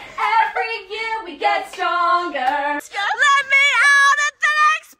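A woman singing unaccompanied, held notes stepping down in pitch; about three seconds in, a higher voice takes over with sliding, wavering notes.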